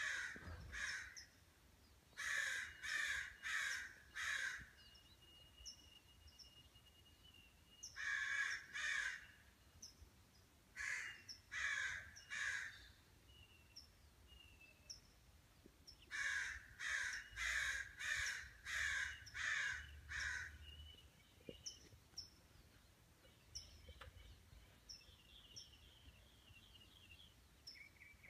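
Crow cawing in runs of three to six harsh calls, with pauses of a few seconds between runs.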